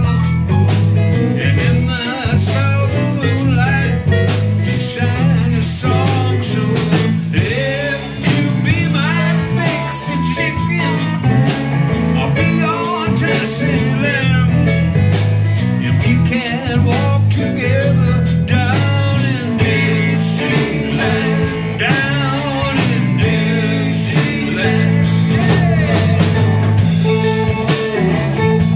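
Live band playing a blues-rock groove: electric guitar, electric bass and a drum kit with a steady beat, the guitar lines bending and wavering over a strong bass line.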